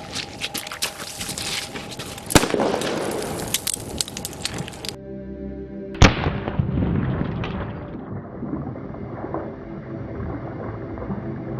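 A grenade exploding in a puddle: two sharp blasts, one about two seconds in and a louder one about six seconds in, each trailing off in a rumble, over background music.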